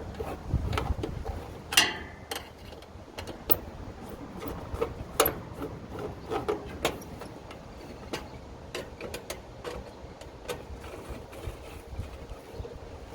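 Irregular light clicks and knocks of hand work, the sharpest about two seconds in, with a low rumble fading out in the first second.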